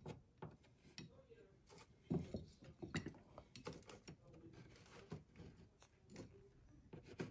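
A marker scraping in short strokes across glazed ceramic tiles as layout lines are drawn on them, with small clicks and rubs of the tiles under the hand.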